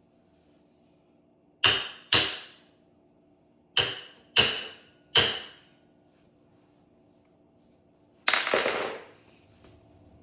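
A hammer striking metal five times in two uneven groups, each blow ringing briefly, then a clatter about a second long near the end.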